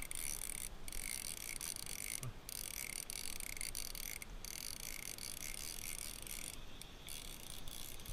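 Insects buzzing in a high, steady chorus that drops out briefly a few times.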